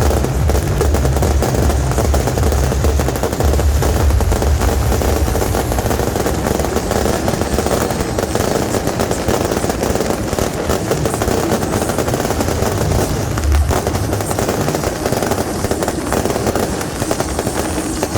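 Firecrackers and beehive bottle rockets going off in a dense, rapid, unbroken crackle, like machine-gun fire.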